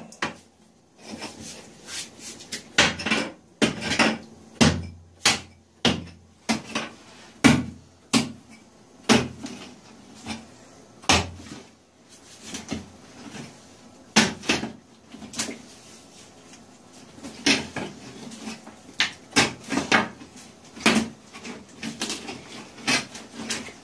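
Broken rock being handled and struck: irregular sharp knocks and clacks of rock on rock, one or two a second, right after the bedrock has been fractured by a SierraBlaster charge.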